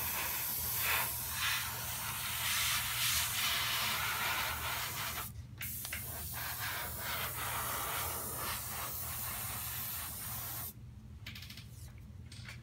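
Iwata airbrush hissing in spurts as it sprays dark brown acrylic onto a model horse, with one short break about halfway through. It stops near the end, leaving a steady low hum.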